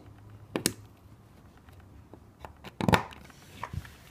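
Lego wheels being pressed onto a small Lego car and the car handled, giving a few sharp plastic clicks and knocks; the loudest is a quick cluster about three seconds in.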